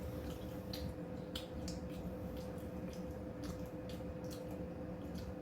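Close-miked chewing: soft, wet mouth clicks and smacks at irregular moments, a few each second at most, over a faint steady hum.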